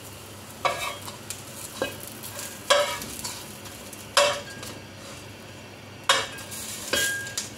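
Metal spatula scraping and knocking against a nonstick wok about five times as the pieces are turned, over a faint sizzle of food dry-frying without oil.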